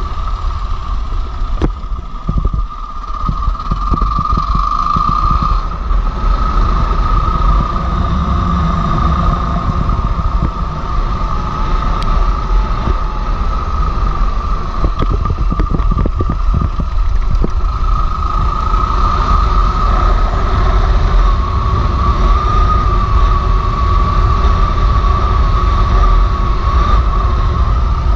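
Motorcycle riding a gravel road: the engine runs steadily under wind rush and a low rumble, with a steady whine throughout and scattered short knocks in a couple of places.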